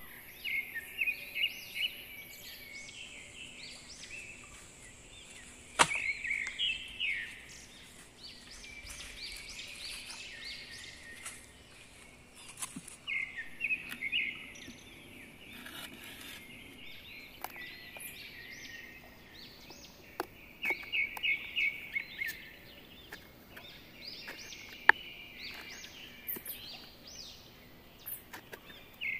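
Wild birds calling outdoors in short, rapid chattering phrases that come every few seconds. A few sharp knocks stand out, the loudest about six seconds in and near the end.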